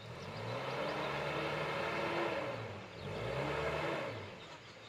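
An engine revving in two swells: it rises and falls, comes up again, then dies away.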